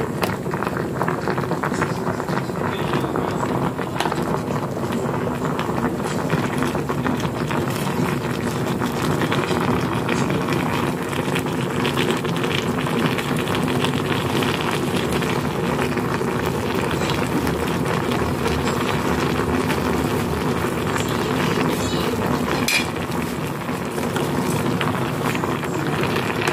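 Young jackfruit pieces cooking in a hot wok, with a steady sizzle and simmer and small clacks of a wooden spatula stirring them. A sharper knock comes near the end.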